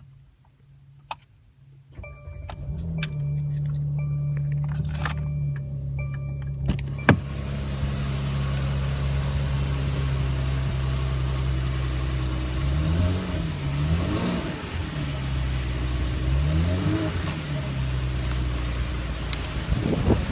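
A Mercedes-AMG E43's twin-turbo V6 is started about two seconds in and settles into a steady idle, with an electronic chime repeating a few times over it. Later there are a few quick throttle blips, each rising and falling in pitch. Heard from inside the cabin.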